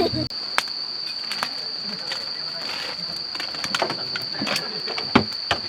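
Insects trilling outdoors: one steady, unbroken high-pitched tone, with scattered sharp clicks and knocks over it.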